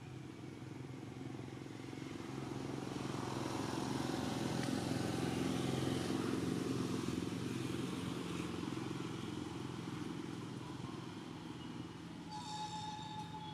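A motor vehicle engine passing by: its steady hum grows louder to a peak about halfway through, then fades away.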